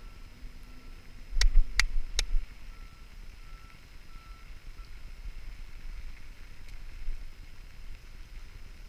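Three sharp knocks in quick succession about a second and a half in, heard muffled through a waterproof camera housing, over a faint beeping tone that comes and goes.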